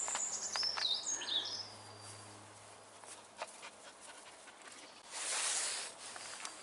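A small songbird singing a quick phrase of high notes that step down in pitch over the first second and a half. A brief hiss of noise follows about five seconds in.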